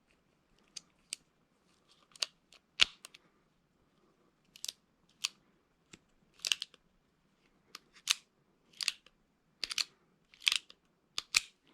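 Rock Island Armory M200 .38 Special revolver's action being worked while empty, giving a string of sharp metallic clicks of hammer, trigger and cylinder about once every half-second to second, some in quick pairs; the loudest comes about three seconds in. The action is smooth.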